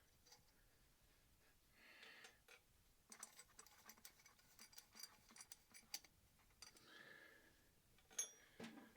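Faint scattered clicks and light taps from handling the parts of a disassembled Honda CB450 engine, with two soft rustling swells, one about two seconds in and one near seven seconds; otherwise near silence.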